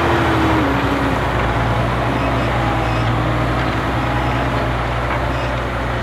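Massey Ferguson 7715 Dyna VT tractor's six-cylinder diesel working steadily under load as it pulls a Pöttinger Servo 35S Plus reversible plough through the soil. A tone in the running drops in pitch about half a second in.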